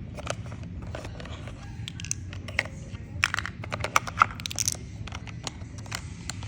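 Irregular clicks, taps and crinkles of small plastic toys and their packaging being handled, loudest in a cluster about halfway through.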